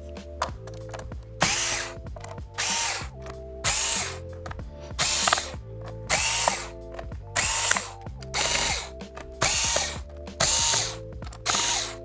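Cordless electric screwdriver run in about ten short bursts, roughly one a second, each a half-second whir that rises quickly in pitch as the motor spins up, loosening the screws of a laptop's bottom cover one after another. Soft background music with held notes runs underneath.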